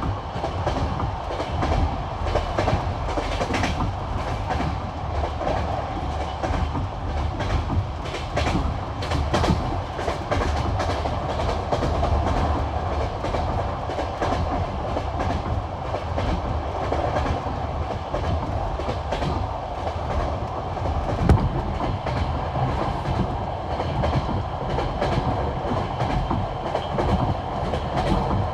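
Passenger train carriage running at speed over jointed rail track: a steady rumble with the rhythmic clickety-clack of wheel sets striking the rail joints. A sharper knock comes about three quarters of the way through.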